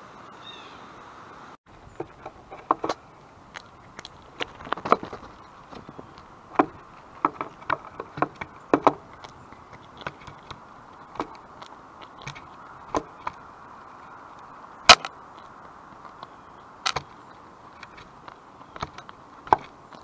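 Birds pecking and cracking seed at a feeder: irregular sharp taps and clicks, several in quick clusters, one much louder near the middle, over a faint steady hum.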